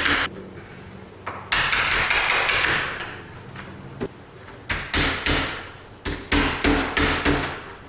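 Hammer tapping a wood chisel around the outline of a deadbolt mortise in a door edge, cutting it deeper before chiselling out. A quick run of sharp taps comes about a second and a half in, a few spaced taps follow, and another quick run comes near the end.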